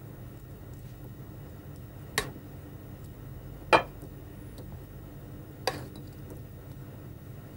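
Pastry brush clinking against a stainless steel bowl as it scoops mayonnaise, three sharp clinks a second and a half to two seconds apart, the middle one loudest, over a steady low hum.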